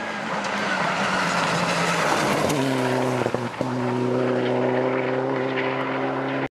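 Rally car engine running hard as the car passes along the stage, its note swelling over the first two seconds. About two and a half seconds in the pitch drops to a new steady note, with two sharp cracks a moment later.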